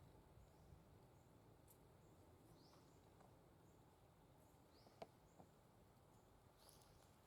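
Near silence with a low background hiss, broken by a few faint, short high chirps about every two seconds and one soft click about five seconds in.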